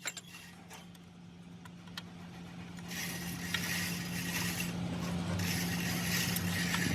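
A workshop machine running with a steady hum, with a few light clicks at first. About three seconds in, a steady high-pitched hiss of metalwork joins it and runs on, pausing briefly once.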